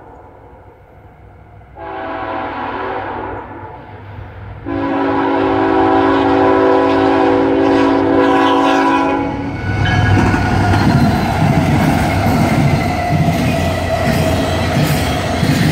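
Diesel locomotive's multi-note air horn sounding two blasts, a short one and then a long one of about five seconds, followed by the train passing close by, loud, with rumbling and wheel clatter on the rails.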